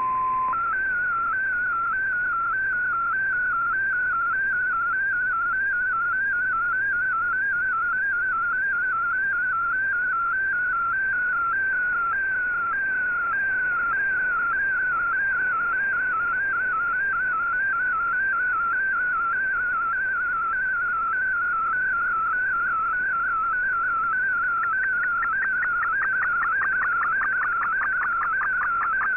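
Shortwave Radiogram's MFSK digital picture transmission heard through the Icom IC-R8600 shortwave receiver: a whistling tone that wavers quickly up and down in pitch as it carries the image line by line, over a faint radio hiss. A brief steady tone opens it, and near the end the warble gets faster and busier.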